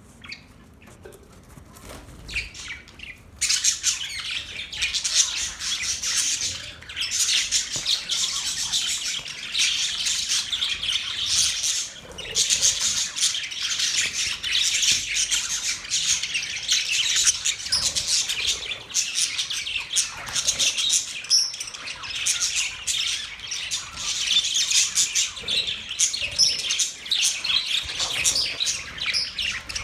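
Budgerigars chirping and chattering, a dense stream of quick overlapping chirps. It is fainter for the first three seconds or so, then gets suddenly louder.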